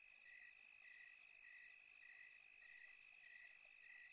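Faint crickets chirping, a short chirp repeating evenly about every two-thirds of a second over a steady high trill.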